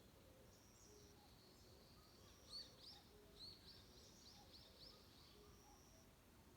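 Faint forest birdsong. A quick run of about eight short chirping notes comes a couple of seconds in, over repeated thin, high, level whistles and faint low calls from other birds.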